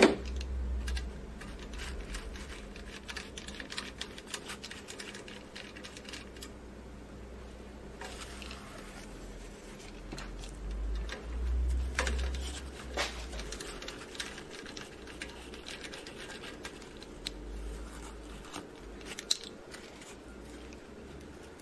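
Hands scraping toner debris off a Xerox wide-format printer's fuser thermistors over a paper towel: scattered small scratches, clicks and paper rustling, with a sharp click at the very start and another near the end.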